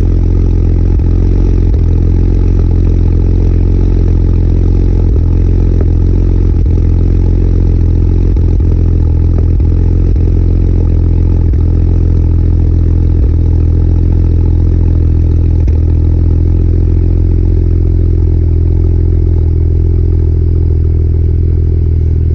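BMW N54 twin-turbo 3.0-litre inline-six running at a steady idle, with an uneven stumble breaking the rhythm every second or two: the sign of a misfire, which the owner takes for a failing fuel injector.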